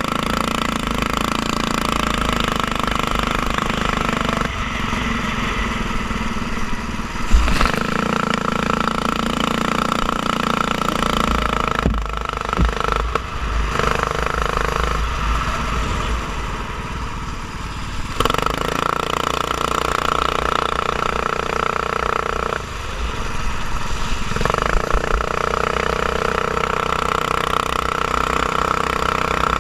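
Go-kart engine heard onboard, running hard with a steady pitch on the straights and falling away briefly as the driver lifts for corners, about twelve, eighteen and twenty-two seconds in. A single sharp knock comes about seven seconds in.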